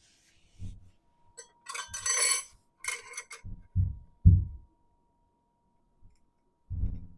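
Metal parts clinking and scraping, then a few dull low knocks, as a back gear pulley flange is pushed onto a milling machine's belt housing.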